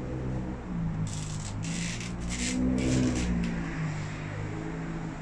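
A motor vehicle's engine running, its pitch shifting up and down, with a few short hissing bursts in the middle.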